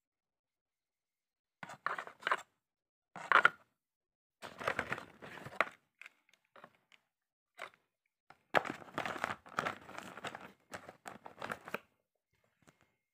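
Rustling and crinkling of cardboard and plastic packaging as the clipper's plastic guide combs and power cord are handled in their box insert, in a string of irregular bursts with short silent gaps.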